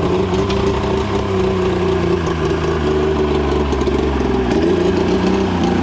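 Polaris 650 EFI triple two-stroke snowmobile engine idling steadily.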